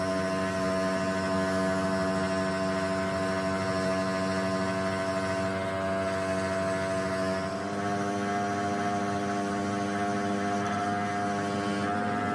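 A steady machine hum at one fixed pitch, stepping slightly higher with a brief dip in loudness about two thirds of the way through.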